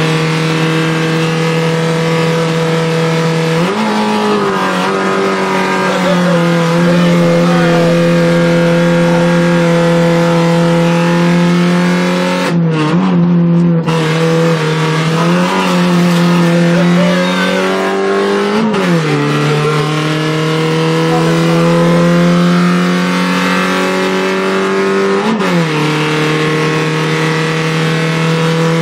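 Fiat Punto Cup rally car's engine heard from inside the cabin, held at high revs under hard acceleration. Several times the note drops sharply and climbs back, as at gear changes.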